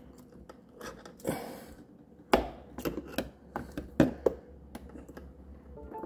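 Small sharp metal clicks and taps of pliers against a refrigerator door's middle hinge as an alignment snap ring is worked onto the hinge pin, about half a dozen clicks spread over a few seconds with a short rustle early on.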